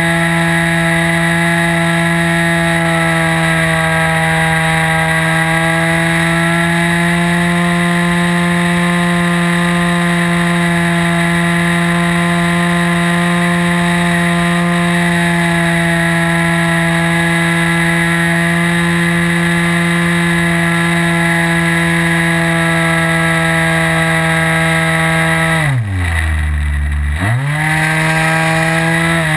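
OS 55 AX two-stroke glow engine of a radio-controlled model aeroplane running steadily at high throttle, heard from a camera mounted on the plane. About 26 seconds in it is throttled back, its pitch dropping sharply, then opens up again a second or so later.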